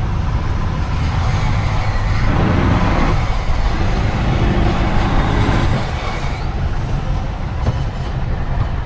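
Small fishing boat's engine running steadily at low speed, a dense low rumble.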